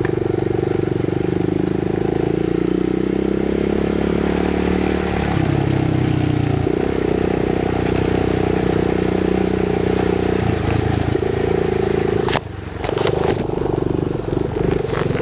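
Off-road motorcycle engine running steadily while being ridden along a dirt trail, heard close up. Its pitch steps down and back up a few times, and about twelve seconds in the engine drops away briefly with a few clicks before it picks up again.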